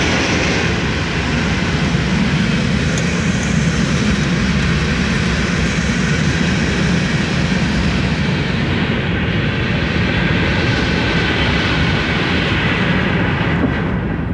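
Steady rumble of a freight train's loaded aggregate hopper cars rolling past on the rails, mixed with the car's own running noise, heard from inside the car.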